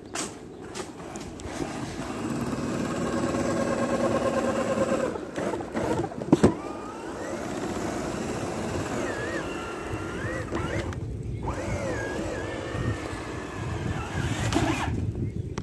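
Traxxas TRX-4 RC crawler's electric motor and gearbox whining as it pushes through deep snow, the pitch rising and falling with the throttle. A single sharp knock comes about six seconds in.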